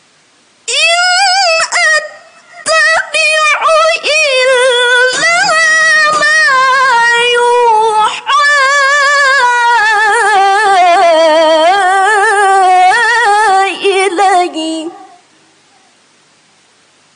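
A young woman's voice in melodic Quran recitation (tilawah): one long, heavily ornamented phrase with quick pitch turns, high at first and stepping down gradually. It breaks off about fifteen seconds in, leaving faint hiss.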